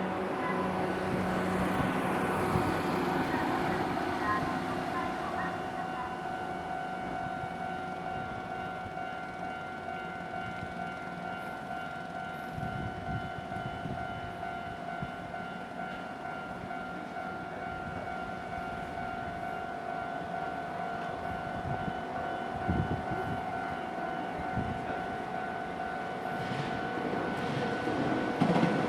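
Railway level-crossing warning bell ringing steadily. A rushing train-like noise fades over the first few seconds, and an approaching train grows louder near the end.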